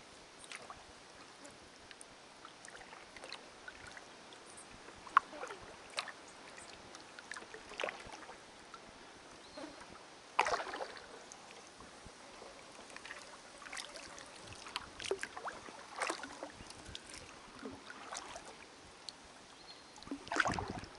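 Kayak paddle strokes: the blade dipping into calm water every second or two with small splashes and drips, a fuller splash about ten seconds in, and one sharp knock about five seconds in.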